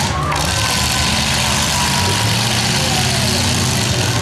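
Demolition derby cars' engines running together, a loud steady drone whose pitch wavers a little.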